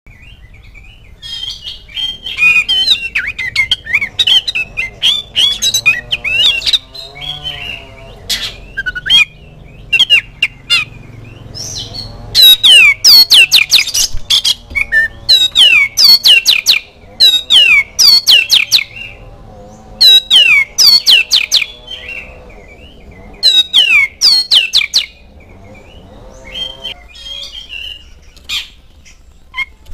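Oriental magpie-robin singing loudly in varied phrases of rapid, sharp down-slurred whistles and chirps, separated by short pauses.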